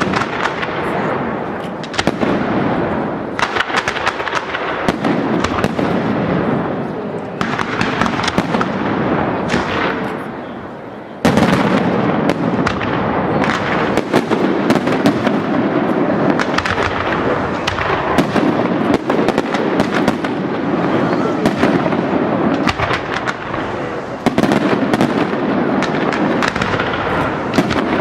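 Aerial fireworks display: a continuous barrage of shell bursts and dense crackling, with a sudden heavier volley about eleven seconds in.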